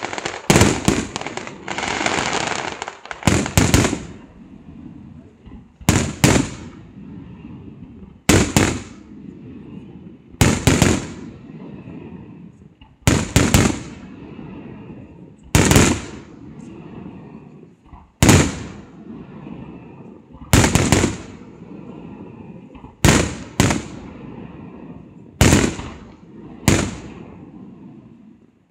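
Aerial fireworks shells bursting: sharp bangs about every two and a half seconds, mostly in close pairs, each trailing off in an echo. Crackling fills the gaps, densest in the first few seconds.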